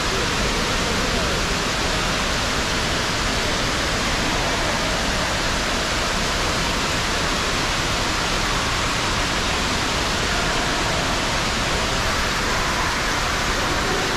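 Multi-storey indoor waterfall, a wall of water cascading into the pool below, giving a steady, loud rush of falling water.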